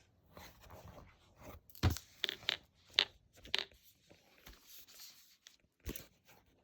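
Packaging being handled and opened: irregular crinkling, scraping and sharp clicks, most of them between about two and four seconds in, with one more near the end.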